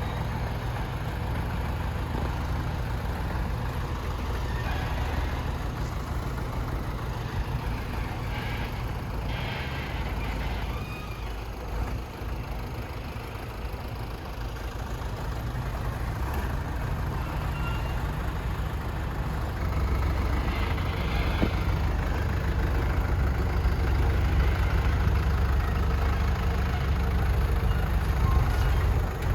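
Hydraulic excavator's engine running steadily, getting louder about two-thirds of the way through.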